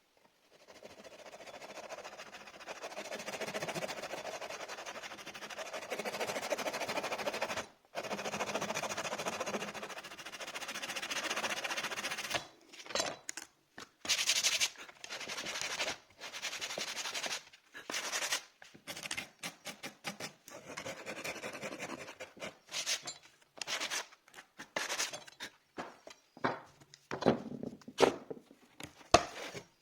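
Hand rubbing on the wooden surface of a cupboard being restored: steady scratchy strokes for about the first twelve seconds, then a run of short, separate strokes.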